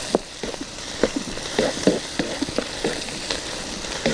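Chicken gizzards sizzling in hot oil in a large black pan, stirred with a wooden spatula that scrapes and knocks against the pan again and again.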